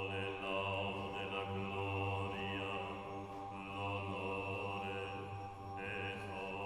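Slow chant-like music over a steady low drone, with a thin high tone above it that fades out and comes back.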